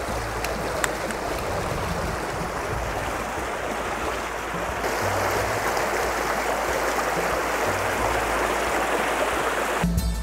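Shallow spring-fed stream flowing steadily over stones, giving way abruptly to music just before the end.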